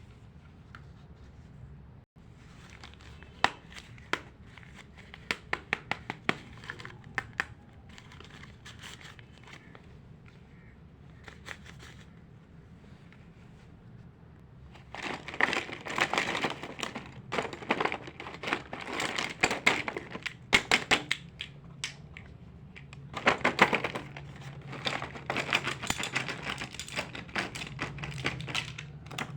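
Plastic packaging crinkling and rustling as it is handled and opened, with scattered small clicks in the first part and dense stretches of crinkling from about halfway and again near the end.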